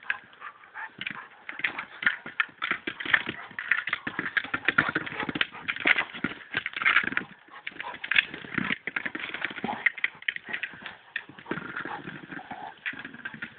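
Rottweiler knocking and pushing a hard plastic Boomer Ball over dirt and concrete: a rapid, irregular stream of hollow knocks and scrapes.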